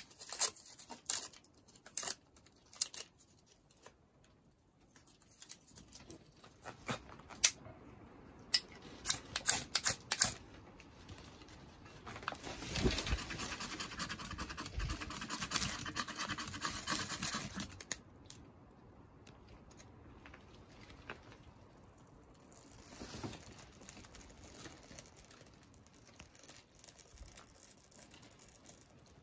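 Dry tinder crackling and tearing in sharp little snaps as it is pulled apart by hand, followed about twelve seconds in by a steady rasping scrape of a knife struck down a ferrocerium rod to throw sparks into the tinder, which stops suddenly after about six seconds.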